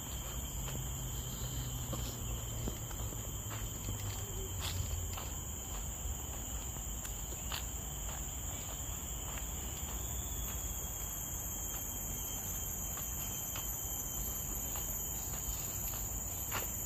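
Steady, high-pitched drone of a tropical forest insect chorus, several unbroken ringing tones held together, with a few faint scattered ticks.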